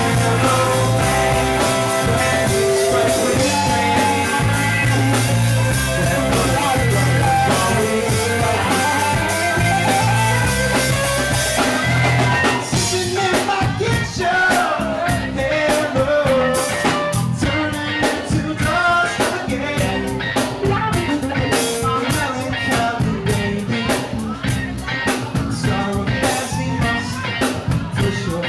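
Live rock band playing, with electric guitars and a drum kit. About halfway through, the full sound drops back to a sparser passage where the drum hits stand out.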